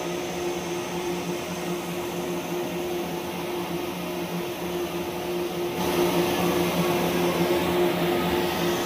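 Single jersey circular knitting machine running: a steady mechanical whir with a constant low hum, getting louder about six seconds in.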